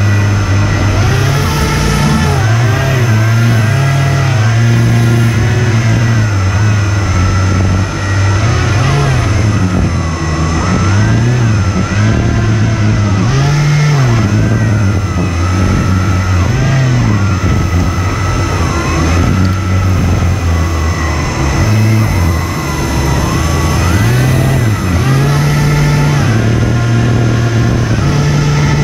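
The HP server fans of an RC hovercraft whining loudly and steadily, their pitch rising and falling over and over as the throttle is worked.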